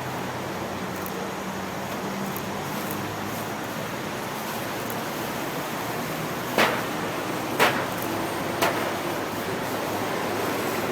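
Steady rushing noise of freeway traffic, with three sharp pops about a second apart a little past the middle.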